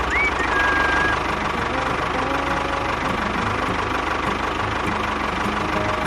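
Tractor-type diesel engine idling with a steady knocking beat. A brief high whistle sweeps up and holds for about a second near the start.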